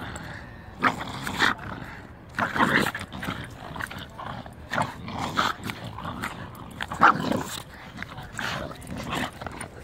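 A Staffordshire Bull Terrier and an English Bulldog making short, irregular dog noises through their mouths while both grip and tug the same toy, with a sharper burst about seven seconds in.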